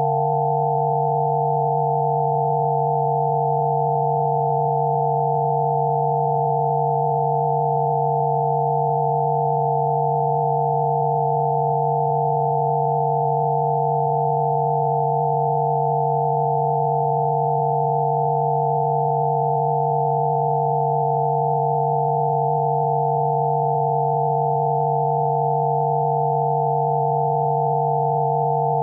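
Electronically generated Rife frequency tones: several pure sine tones held together without change, one low tone and a cluster of higher ones above it.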